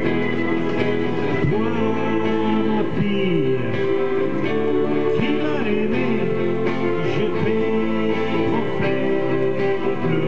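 A man singing while strumming a Stratocaster-style electric guitar played through a small amplifier.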